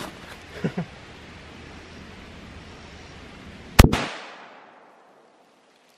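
A single shot from a Mosin-Nagant bolt-action rifle in 7.62x54R, about four seconds in, with a short echo trailing off after it.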